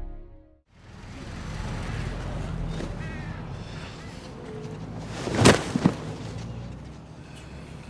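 Open-air background of a crowd of men with faint voices, broken about five and a half seconds in by a sharp heavy thud and a smaller one just after: a man's body dropping onto the ground.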